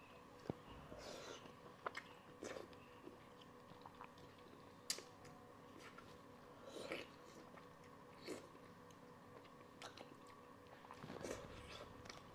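Quiet close-up eating sounds: soft chewing and wet sucking as fish head meat is eaten, broken by a few sharp, brief clicks.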